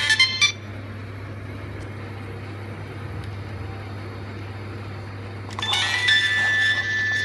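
A Nokia 3220 ringtone's last notes cut off about half a second in, leaving a steady low hum. About five and a half seconds in, the phone's next ringtone starts and settles into a high held tone.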